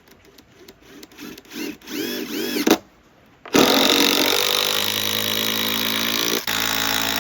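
Power drill driving a long screw into wood. A few short spurts of the motor come first, then a long steady run under load, with the motor's pitch dropping a little as the screw bites.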